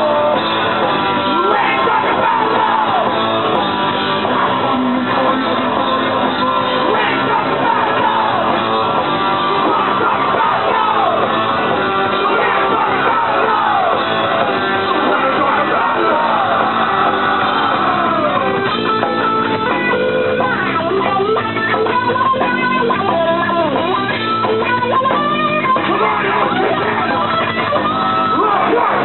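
Punk rock band playing live: electric guitar and bass guitar over drums, loud and continuous.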